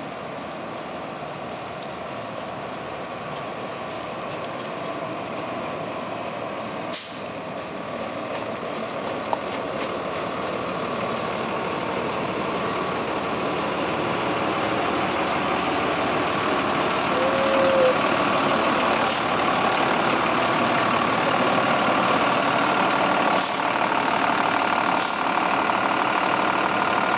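Diesel engine of a 2004 Freightliner M2-106 single-axle truck running steadily, growing gradually louder, with one short sharp burst about seven seconds in.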